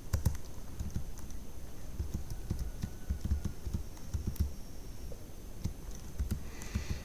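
Typing on a computer keyboard: an uneven run of key taps.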